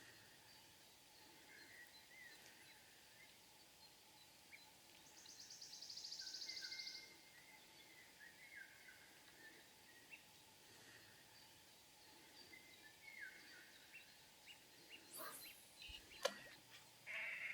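Faint open-air ambience with scattered distant bird calls. About five seconds in, a rapid, high buzzing trill swells for two seconds and stops. A few sharp clicks and short calls come near the end.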